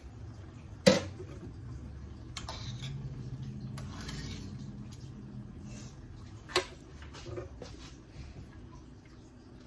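Metal spoon stirring soup in a stainless steel saucepan, with a sharp clank against the pot about a second in and another about six and a half seconds in, and softer taps between.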